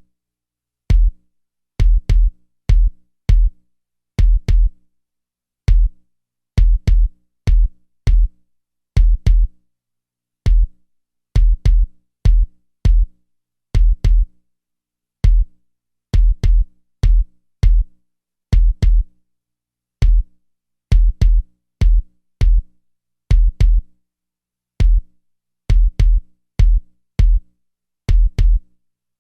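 Bass test track: a kick drum pattern triggering a 40 Hz tone. It gives short, deep hits, mostly in pairs with some singles, each with a sharp click at the start and silence in between.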